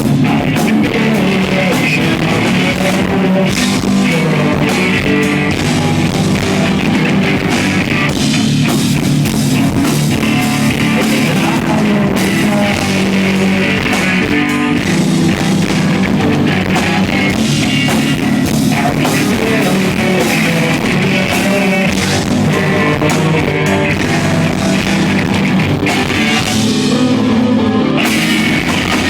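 A rock band playing live: loud, distorted electric guitars and a drum kit, recorded from the audience on a small handheld device.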